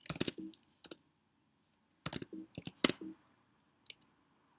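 Typing on a computer keyboard: a quick run of key clicks at the start, another run about two seconds in, and single keystrokes between, with pauses of silence.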